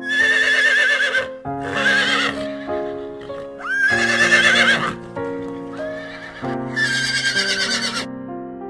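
Horse whinnying four times, each a loud, wavering call, over light keyboard music.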